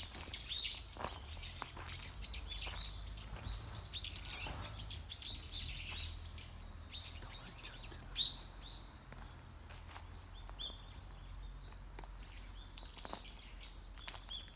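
Small birds chirping in quick, short, falling calls, busiest in the first half and thinning out later, over a low steady rumble. One sharp click about eight seconds in.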